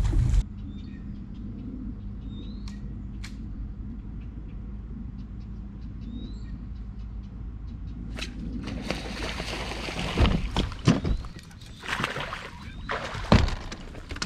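A few short bird chirps over a low steady hum. From about eight seconds a louder rushing noise takes over, with irregular knocks and thumps.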